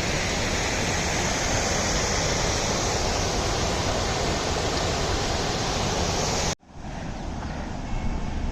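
Water pouring steadily down a small overflow waterfall, a continuous even rush. About six and a half seconds in it cuts off abruptly to a quieter low rumble with wind noise.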